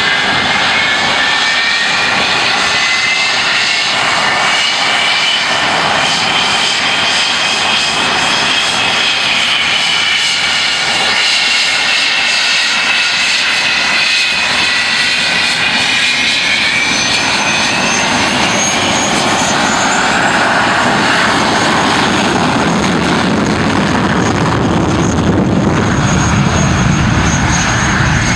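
English Electric Lightning's twin Rolls-Royce Avon turbojets running as the jet taxis: a loud, high whine that drifts up and down in pitch over a wide rushing hiss. A deeper rumble grows in the last several seconds as the tailpipes turn toward the listener.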